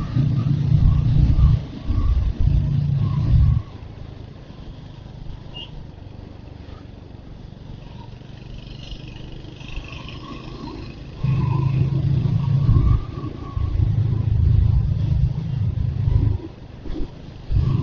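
Royal Enfield Hunter 350's single-cylinder engine running while the motorcycle is ridden, with road and wind noise. It is loud for the first few seconds, eases to a quieter stretch from about three and a half seconds, and comes back up from about eleven seconds in.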